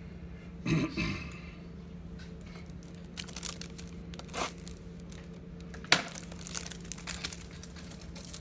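Plastic wrapping on a pack of Ultra Pro super thick toploaders crinkling and tearing as it is opened. Small crackles and clicks come from about three seconds in, with one sharp click near six seconds.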